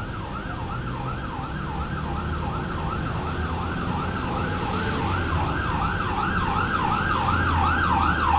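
Emergency vehicle siren in a fast yelp, its pitch rising and falling about three times a second and growing gradually louder, over a low steady rumble.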